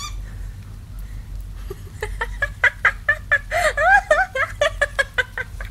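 A small puppy whining in a quick run of short, high yips, about four a second, starting about two seconds in.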